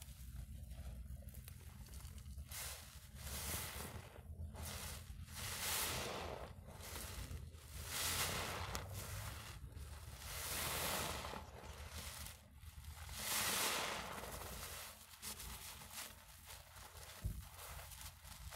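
Soapy foam sponges squeezed in thick lather: wet squelching and crackling of suds in slow, repeated squeezes, about one every two to three seconds.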